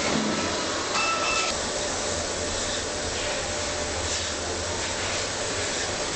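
Steady machinery noise with a constant low hum, and a brief high-pitched whine about a second in.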